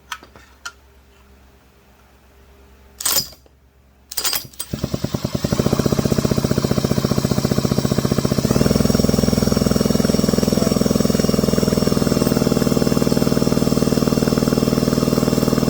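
A couple of clicks, then an impact wrench hammering rapidly and steadily for about eleven seconds as it spins over the S550 chainsaw's engine on a spark check. The engine does not fire: there is no spark.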